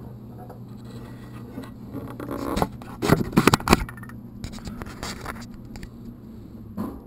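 Scraping and rustling handling sounds over a steady low hum, loudest in a cluster about two and a half to four seconds in.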